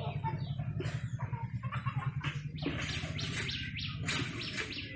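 Chickens clucking and birds chirping, the calls coming quicker from about two seconds in, over a steady low motor hum.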